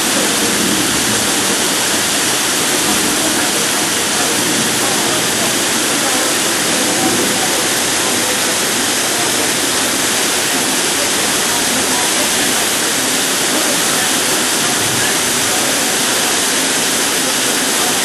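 Shasui Falls waterfall pouring, a steady, unbroken rush of falling water.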